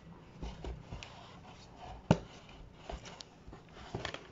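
Homemade cardboard box being handled and closed: faint knocks and rustles of cardboard, with one sharp tap about two seconds in.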